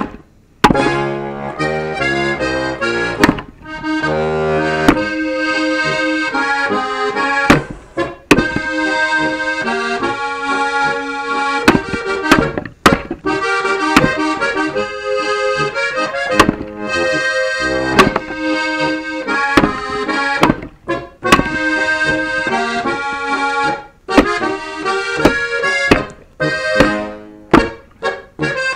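Accordion music runs throughout, cut through by a dozen or so sharp cracks at uneven intervals: an axe striking and splitting firewood logs on a chopping block.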